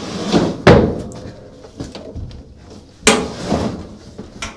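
The steel top panel of a Speed Queen top-load washer being lowered and shut onto the cabinet: a loud metal clunk under a second in and a second clunk about three seconds in, with rattling around them.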